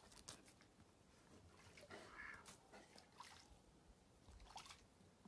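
Near silence, with a faint soft duck call about two seconds in and a few faint scuffs in the snow.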